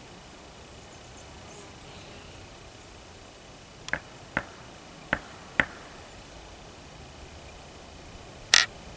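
Sharp clacks like rocks being knocked together, heard as 'clack clack' twice, each pair about half a second apart, taken by the listener for something clacking a rock. Near the end comes a single louder, sharper click.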